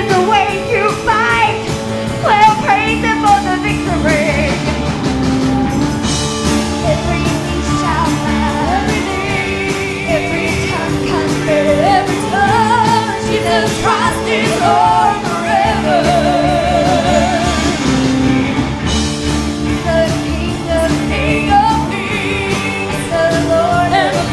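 Live gospel worship music: a band with keyboard, bass and drums plays a steady praise song while a singer holds and bends long notes with vibrato.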